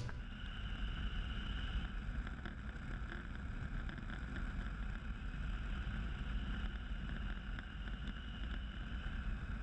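Yamaha Super Ténéré motorcycle riding at a steady speed: a low, steady engine-and-road rumble mixed with wind noise on the camera microphone.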